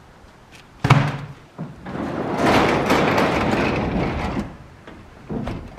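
A sharp thump about a second in, then a sectional overhead garage door rolling down its tracks for a couple of seconds and shutting, with a few smaller knocks near the end.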